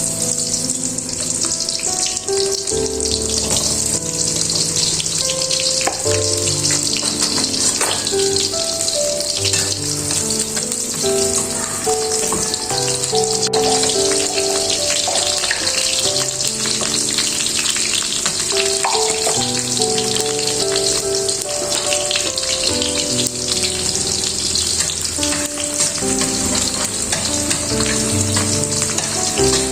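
Food frying with a steady, crackling sizzle, over soft background music of stepped notes.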